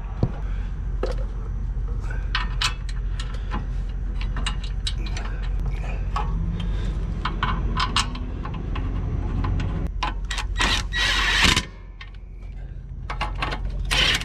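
Metal clinks and taps of tools and brake hardware as the rear caliper bolts are refitted, over a steady low hum, with a brief harsh burst of noise about eleven seconds in.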